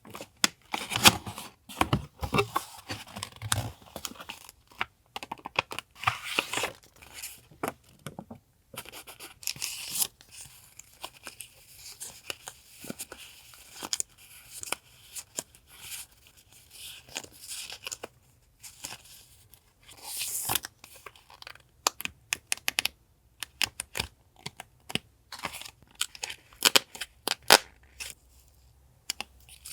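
Sticker sheets, paper goods and their packaging being handled and torn open: irregular rustling, crinkling and tearing, broken by sharp taps and clicks.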